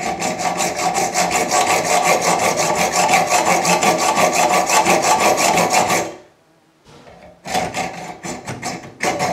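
Hacksaw cutting a slot into a small metal cap held in a bench vise, in quick, even back-and-forth strokes. The sawing stops about six seconds in and starts again with another short run of strokes about a second and a half later.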